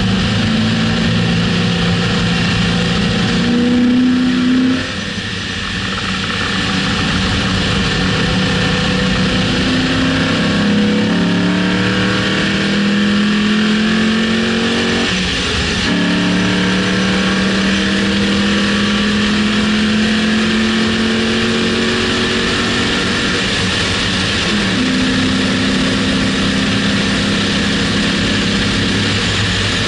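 A Steeda-modified 2006 Mustang GT's V8 pulling hard at speed on a race track. Its pitch climbs in long pulls, dropping back with upshifts about 15 and 25 seconds in, under heavy wind and road noise. The level dips briefly about five seconds in.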